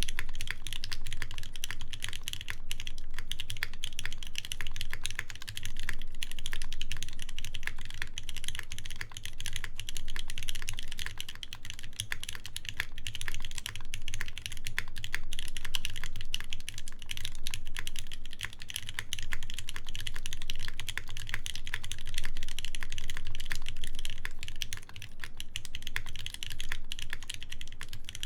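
Continuous fast typing on a mechanical keyboard with lubed ZealPC Tealios linear switches, a brass plate and GMK keycaps: dense, steady keystroke clacks with a deep low thock under each press.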